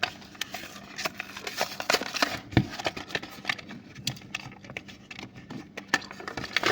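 Hot Wheels blister pack being opened by hand: the plastic bubble and cardboard card crackling and crinkling in a quick, irregular series of clicks.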